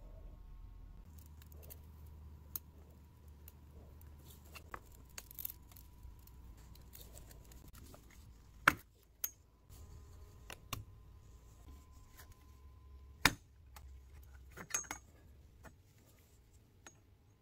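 Light metal clicks and clinks from a thin wire lamp guard being worked free of its metal collar by gloved hands, with two sharper taps, one about halfway through and one about three-quarters of the way in.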